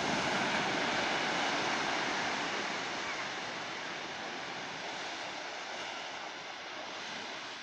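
Ocean surf washing over a flat sandy beach: a steady rush of breaking water that slowly fades.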